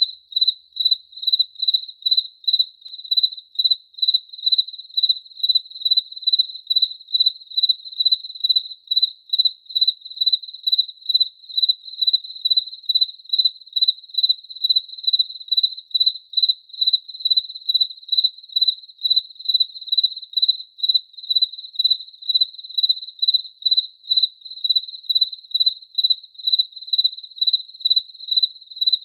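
A cricket chirping steadily: a single high, pure-toned chirp repeated evenly, about twice a second, without a break.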